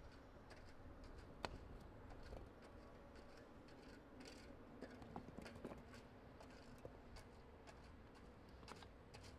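Near silence, with faint scattered small clicks and ticks over a low background hiss. The clearest click comes about one and a half seconds in.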